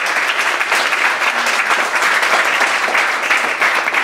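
Theatre audience applauding, a dense steady clatter of many hands clapping.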